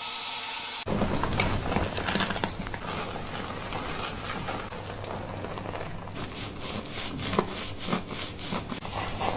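Fingers scrubbing and scratching through hair and scalp close to the microphone: dense crackling and rustling strokes over a steady low hum. It follows a steady hiss that cuts off abruptly about a second in.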